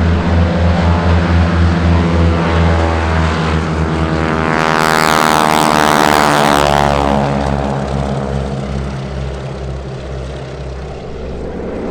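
Piston-engined propeller aircraft flying past. Its engine note builds to a loud peak about halfway through, then drops in pitch and fades as it goes away.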